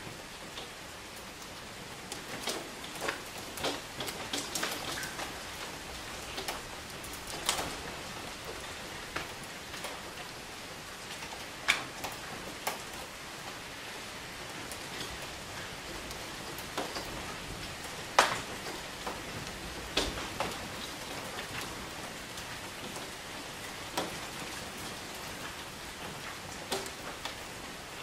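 Steady rain falling, with louder single drops striking close by at irregular intervals.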